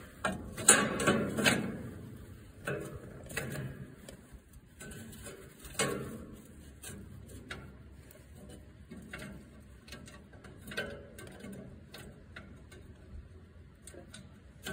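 Metal clicks and knocks of a sheet-metal bracket being handled and fitted under a tractor's dash, an irregular run of short clicks that is loudest in the first two seconds and again about six seconds in.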